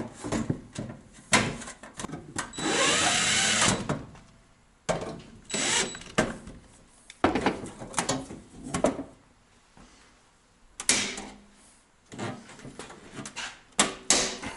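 Cordless drill driving screws into a steel breaker-panel cover: a steady run of about a second and a half about two seconds in, then a shorter run about five seconds in. Around them are clunks and knocks of the sheet-metal cover and panel door being handled.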